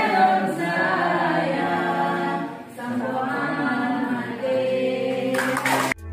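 A group of voices singing together without instruments, holding long notes. It cuts off abruptly just before the end, where music with a heavy beat begins.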